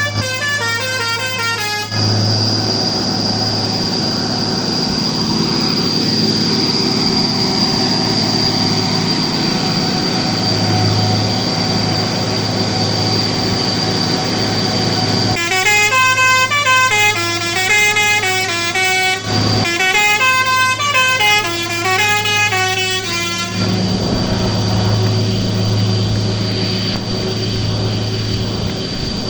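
Heavy truck engine running steadily under load while hauling up a hill. A multi-tone musical horn plays a stepping melody briefly at the start and again for about eight seconds from the middle.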